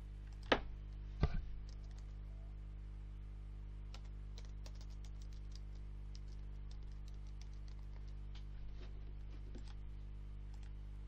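Light, irregular keystrokes on a computer keyboard, typing text for several seconds. Two sharper clicks come about half a second and a second and a quarter in. A steady electrical hum runs underneath.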